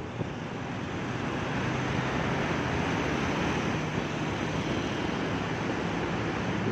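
Steady rushing wind on the microphone and road noise from a moving motorcycle inside a road tunnel, with a faint low engine hum under it.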